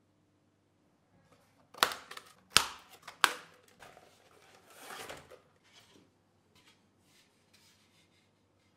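CNC-cut plywood panels knocking against each other as a stack is handled: three sharp wooden clacks, then a sliding scrape and a few faint taps.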